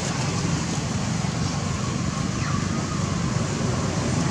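Steady low rumbling background noise, with a faint falling tone about two and a half seconds in.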